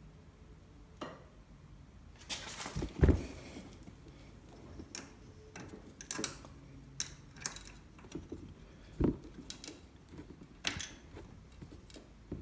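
Scattered clicks, knocks and rattles of hand work on an ATV's throttle cable and linkage, with the engine off. A louder knock comes about three seconds in and another about nine seconds in.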